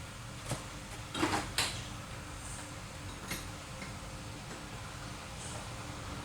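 A few short metallic clicks and scrapes of parts and tools being handled while a fitting is taken off a mechanical fuel injection pump, over a steady low hum.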